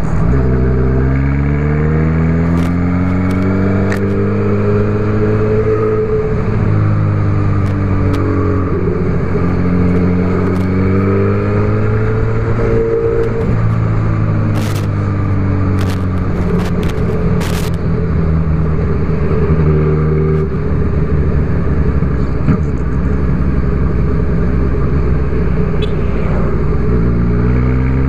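Honda CB1000R's inline-four engine running under way, its revs climbing and dropping several times as the rider accelerates and eases off, under a steady rush of wind and road noise. A few sharp clicks come about halfway through.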